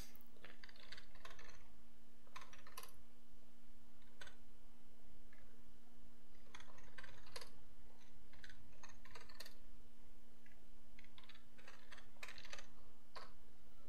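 Computer keyboard typing in several short bursts of key clicks, typing out a new folder's name, over a faint steady hum.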